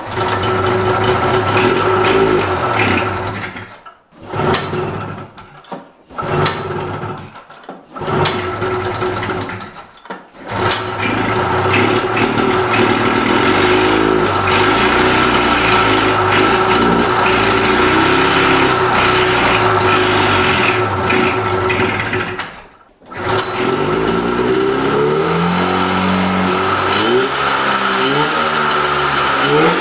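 Vintage Polaris snowmobile's two-stroke twin-cylinder engine firing up on freshly rebuilt carburetors. It catches and cuts out several times in the first ten seconds, then runs steadily, dies for a moment a little before the end, and restarts with the revs rising and falling.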